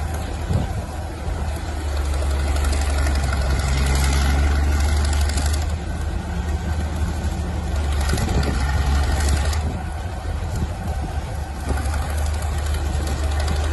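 A heavy engine running steadily with a deep low drone, swelling slightly a couple of times.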